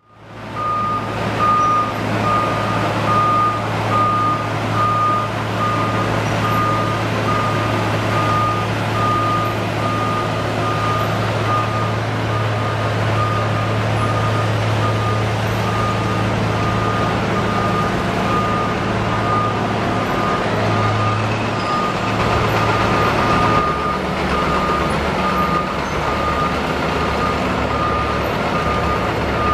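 A backup alarm beeping steadily in evenly spaced beeps, over the loud steady drone of a Roadtec RX500 cold planer's diesel engine and the noise of the machine milling off the asphalt.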